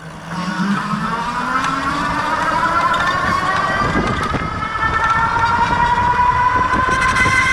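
Rear hub motor of a Lectric 2.0 Step-Thru e-bike running with a whine whose pitch climbs slowly and steadily, over a rougher noisy rumble. The owner calls it an odd sound and fears the motor may need replacing.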